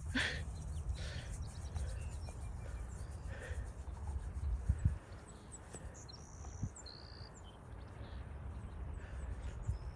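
Low wind rumble on the microphone, with scattered short, high bird chirps.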